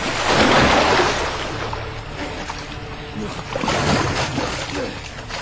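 Heavy splashing and sloshing of water as a person thrashes about in it, with one loud surge just after the start and another about four seconds in.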